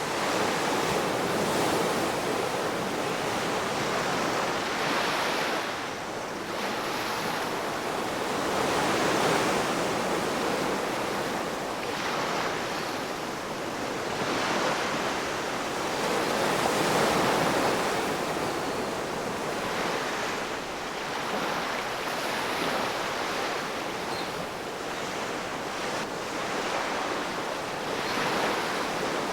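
Ocean waves breaking and washing on the shore, a steady rushing surf that swells and eases every few seconds.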